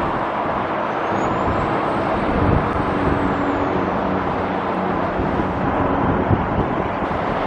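Steady road traffic noise of cars passing on the street, with wind buffeting the microphone.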